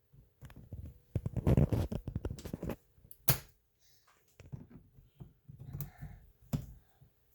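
Old, brittle plastic of a car door speaker cracking and snapping off in quick, irregular clicks and cracks, with some scraping, as the speaker is broken apart; the densest run of cracks comes about a second in.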